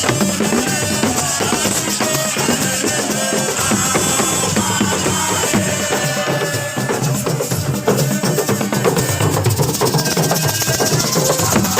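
Loud, continuous drum-led music with a steady beat of repeated drum strikes.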